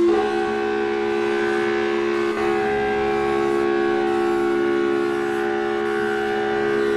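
Emergency alert alarm tone: several steady pitches sounding together as one held, unchanging chord, with no rise or fall and a brief hitch about two seconds in.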